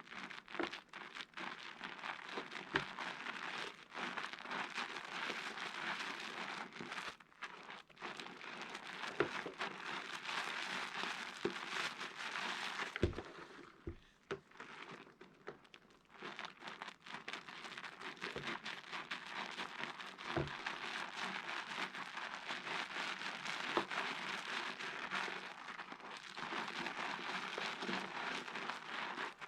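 Soap pieces being washed by hand, giving a continuous wet crackling of lather that dips briefly about halfway through. A few soft knocks are heard along the way.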